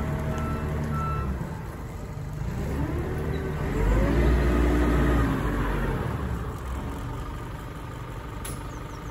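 Terex TA9 9-tonne dumper's diesel engine running, its reversing alarm beeping for about the first second. The engine then revs up, holds for a second or so and drops back as the dumper changes from reverse to driving forward, settling to a lower steady run.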